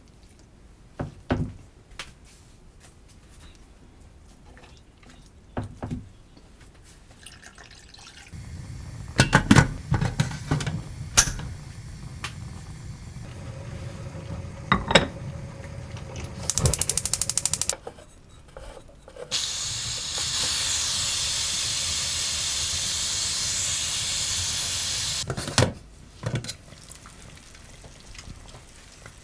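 Kitchen work: a few knocks and clatters, then a tap runs briefly and then runs steadily for about six seconds before it is turned off.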